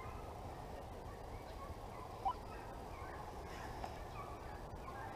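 Deer-hunting hounds baying in the distance: a few short, scattered calls, the clearest about two seconds in, over a low steady rumble.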